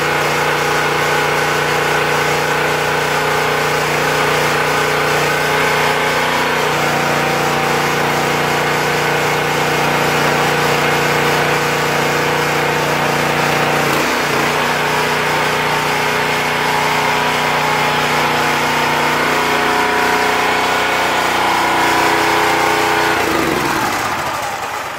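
The 15-horsepower engine of a hydraulic log splitter runs steadily and is noisy. Near the end its pitch falls as it winds down and dies away.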